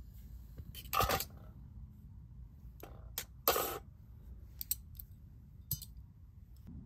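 Handling noises of small hard objects: a few sharp clicks and two louder short clattering scrapes, about a second in and again midway, over a low steady rumble.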